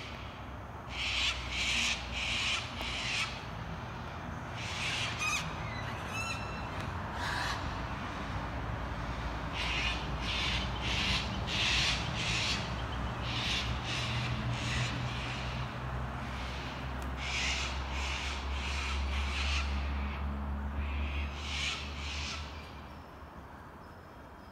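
Several laughing kookaburras calling together in repeated bouts of their laughing call, dying away about two seconds before the end, with a low rumble underneath.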